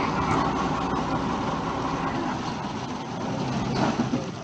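A motor vehicle's engine running with a steady low rumble, and a short knock near the end.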